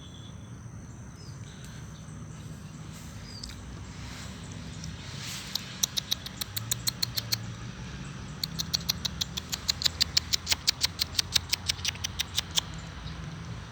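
An animal's call: rapid series of sharp, high clicks, about six a second, in two runs, the second longer. A steady low background hum lies beneath.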